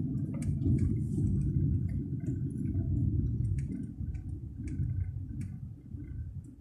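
Low rumble of a car driving slowly along a street, heard inside the cabin, with scattered light ticks and clicks at uneven intervals.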